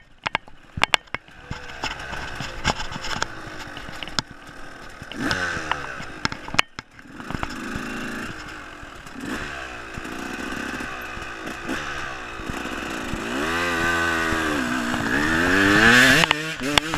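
Dirt bike engine being ridden off-road, its pitch rising and falling with the throttle, with rattling clicks in the first seconds. It dips off briefly around the middle, then revs up in a long rise to its loudest near the end as the bike heads toward a steep dirt slope.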